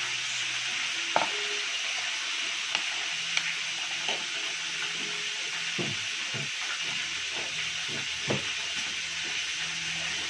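A metal spoon stirring sauce in a bowl, knocking against the bowl several times, over a steady sizzle of frying.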